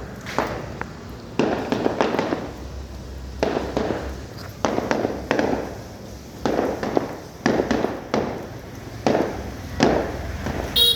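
Fireworks display: aerial shells bursting one after another, about ten sharp bangs roughly a second apart, each trailing off in echo.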